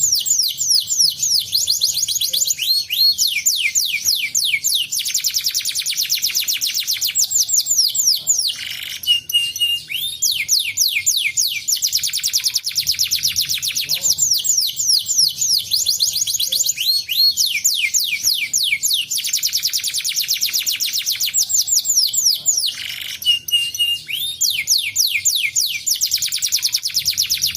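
Domestic canary singing long, fast trills of quickly repeated falling notes, broken now and then by a short held whistle. The same song phrase comes round again about every 14 seconds.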